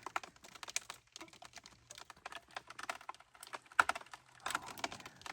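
Bowed log under tension crackling, with irregular small sharp ticks and snaps as its wood fibres give way: the sign that it is about to break and spring up.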